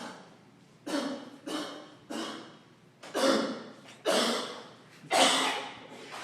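A person imitating a dog's cough: about seven short, harsh, dry coughs, roughly one a second, growing louder as they go, mimicking a toy poodle's progressive, crescendo paroxysmal non-productive cough.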